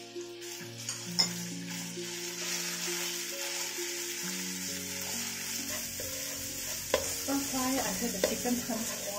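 Minced chicken with garlic and onion sizzling in hot oil in a nonstick wok while a wooden spatula stirs and breaks it up, with sharp knocks of the spatula against the pan about a second in and several more in the last few seconds.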